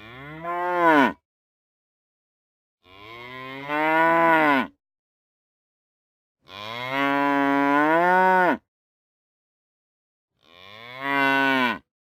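Cattle mooing: four separate moos about three seconds apart. Each moo rises in pitch and swells louder, then cuts off, with silence between them.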